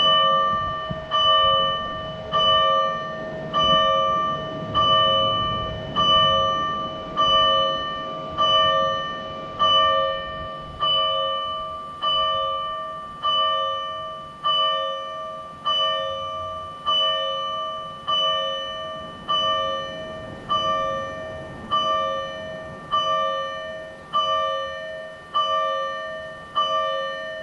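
Fire engine's electronic warning bell from a siren amplifier, striking slowly and evenly about once every 1.2 seconds, each ring dying away before the next: the Tokyo Fire Department's low-speed warning-bell pattern. The strikes grow slightly quieter toward the end.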